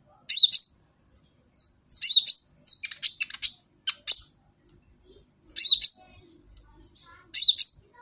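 Black sunbird ('kolibri ninja') giving short bursts of high-pitched chirps with quick falling notes, a phrase every second or so with brief pauses between.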